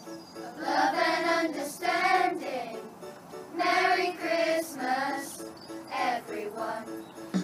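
A class of primary-school children singing a Christmas song together in phrases of a second or two, over a steady instrumental accompaniment.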